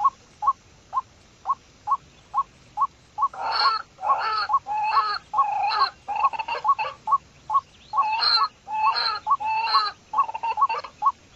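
Pheasant calling: a run of short, even clucks about two a second, then from about three seconds in louder, harsh, grating calls repeated at much the same pace, mixed with the clucks.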